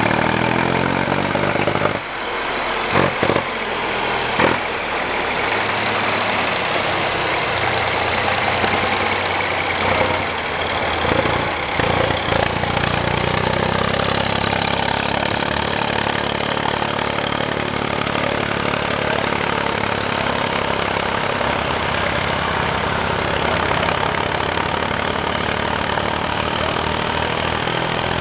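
Engine of an old vehicle running, its note shifting at first, with a few sharp knocks a few seconds in, then settling into a steady idle.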